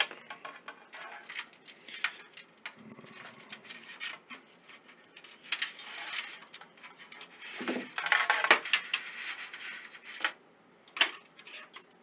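Irregular clicks and light rattles of a small metal push-button switch and its wires being handled and fitted into a hole in a plastic PC case panel, with a longer rustling scrape about two-thirds of the way through.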